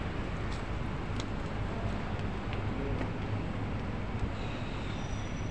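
Steady street noise with a low engine rumble and a few faint clicks.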